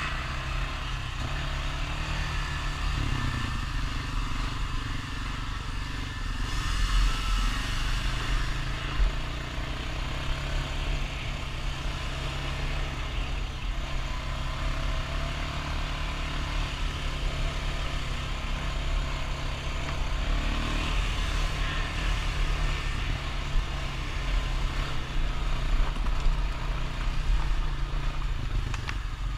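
Honda Rancher ATV's single-cylinder four-stroke engine running steadily under light throttle as it rides a dirt trail, its pitch shifting a little with throttle changes.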